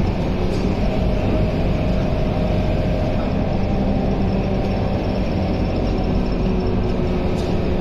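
Scania K230UB city bus driving along, heard from inside its passenger cabin: the five-cylinder diesel engine running steadily with a constant drivetrain hum, mixed with road and tyre noise.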